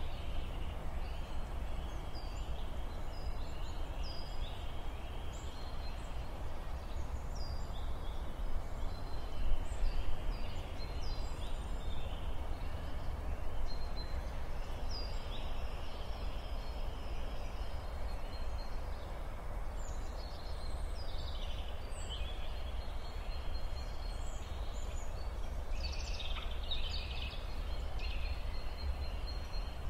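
Outdoor ambience: small birds chirping throughout, short high calls with a busier flurry near the end, over a steady low rumble.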